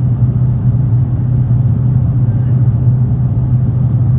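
Dodge Challenger Hellcat's supercharged V8 running at a steady cruise, a constant low drone with no revving.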